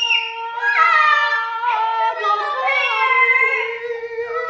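A woman's long, high wail held on nearly one pitch for several seconds, with a second voice changing pitch above it.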